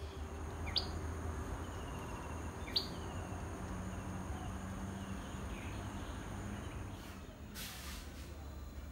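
Tickell's flowerpecker giving two sharp, short rising call notes about two seconds apart, over a steady low hum. A brief rushing noise comes near the end.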